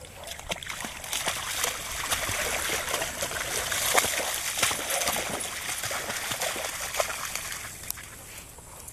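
Water splashing and sloshing as a young Labrador moves through shallow water, with irregular sharp splashes over a steady wash.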